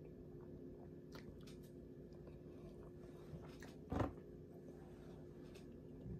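Quiet chewing of food, with faint small mouth clicks over a steady low hum. A single short knock about four seconds in is the loudest sound.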